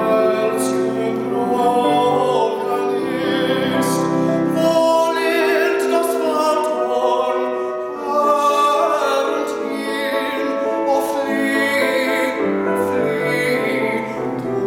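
A male classical singer singing in operatic style, holding long notes with vibrato, accompanied by a grand piano.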